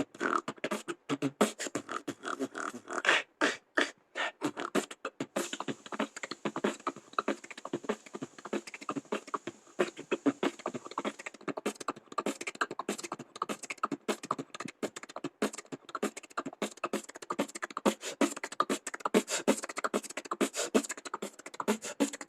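Beatboxing: a fast, dense stream of mouth clicks, pops and short vocal bursts. A steady high hiss is held under the clicks from about five to eleven seconds in.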